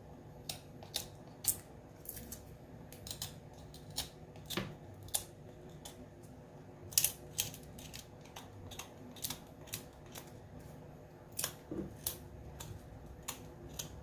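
Dried bitter kola nuts being peeled by hand: a run of small, irregular clicks and scrapes as the dry skin is picked and cracked off, with one louder click about halfway through.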